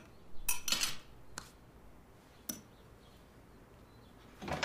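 A few light clinks of dishes and cutlery: about four short, sharp strokes in the first three seconds, some with a brief ring.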